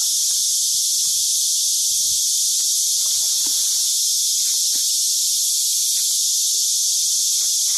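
A loud, steady, high-pitched insect chorus drones without change. A few faint knocks sound underneath it.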